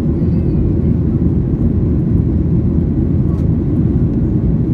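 Steady low rumble of a Boeing 737-800's CFM56 engines and the air rushing past the fuselage, heard inside the passenger cabin in flight.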